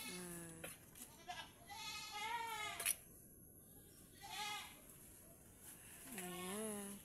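Goats bleating: about four separate quavering bleats, the longest one about two seconds in.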